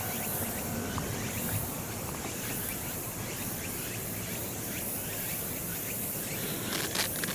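Evening field ambience: insects chirping steadily over a constant background hiss, with two short bursts of noise near the end.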